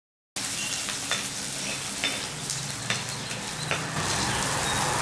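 Chopped pirandai (veld grape) stems and garlic sizzling in hot sesame oil in a kadai, stirred with a steel ladle that clicks against the pan about once a second. The sizzle starts suddenly a moment in and stays steady.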